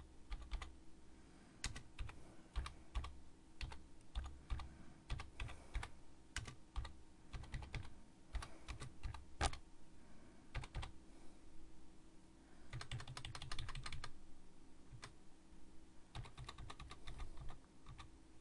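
Typing on a computer keyboard: irregular keystroke clicks, with quicker runs of keys about two-thirds of the way through and again near the end.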